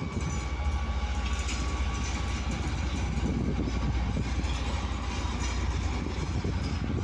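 FS D.145 diesel shunting locomotive running as it moves across the station yard: a steady low engine rumble.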